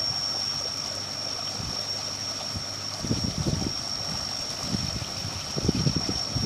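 Pumped well water gushing at full flow from a four-inch outlet pipe into a ditch, with a bottle held in the stream to fill; uneven gurgling surges about three seconds in and again near the end. A steady high-pitched whine sits over the water.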